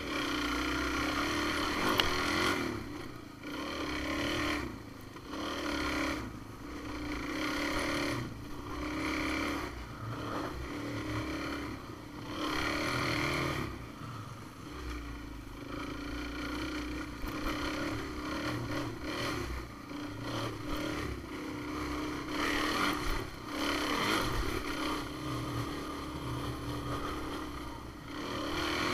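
Off-road vehicle engine running on a trail ride, the throttle opened and eased off every second or two so the engine note rises and falls.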